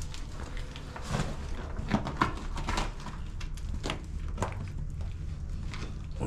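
Irregular scrapes and knocks of shoes and hands on rock and loose stones as a person climbs a cave wall, over a steady low rumble.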